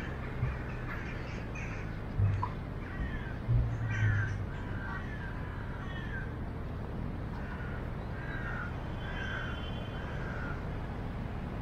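Crows cawing again and again in short, falling calls over a steady background hum, with a few low bumps on the microphone about two and four seconds in.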